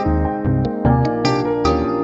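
Instrumental music: rapid struck keyboard notes over a steady bass line, with no voice.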